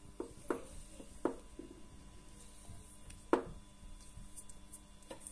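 Small clicks and taps of a screwdriver working at a plastic wire connector in the fingers, a handful of separate ticks with the sharpest about three seconds in.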